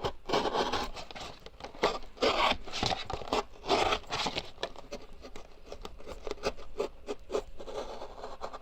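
Cardboard box being cut down to height: a run of scratchy, rasping strokes, longer and louder in the first four seconds, then a string of shorter, quicker ones.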